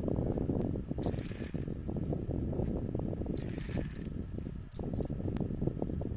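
Small bite-alarm bells on an ice fishing rod tip jingling as the rod is handled. There are two short bursts of high tinkling, about a second in and about three and a half seconds in, and a few brief tinkles near the end, over a steady low rumble.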